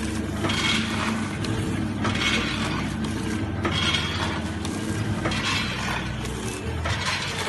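Vertical bag-packing machine running: a steady motor hum under a mechanical clatter that repeats about every second and a half, one packing cycle after another.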